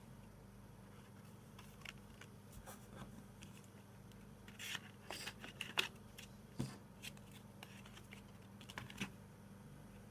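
A CD case and its packaging being handled: scattered light clicks and short scratchy rustles, with a cluster of louder clicks and scrapes about halfway through.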